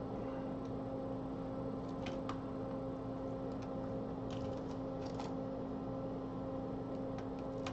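Fume extractor fan running with a steady hum, with a few faint, light clicks over it.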